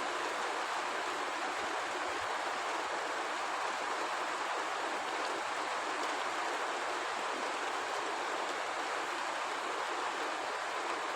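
Rain that is not very heavy falling steadily, an even hiss.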